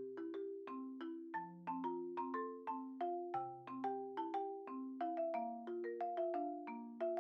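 Background music: a light melody of struck mallet notes, marimba- or xylophone-like, over bass notes, at a steady bouncy pace of about three to four notes a second.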